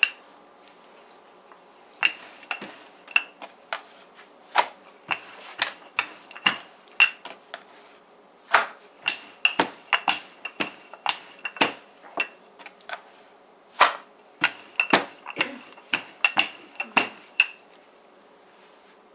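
Wooden rolling pin rolling roti dough thin on a bamboo cutting board: a run of sharp, irregular knocks and clacks as the pin and board strike, with short pauses between strokes.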